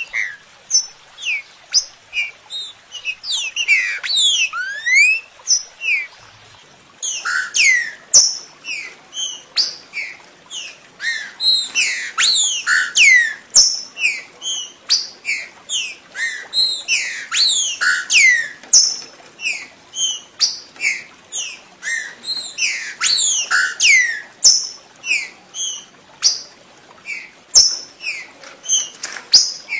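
Green-winged saltator (trinca-ferro) song: a continuous run of quick, clear whistled notes, most of them sliding down in pitch, several a second, with a short pause about six seconds in.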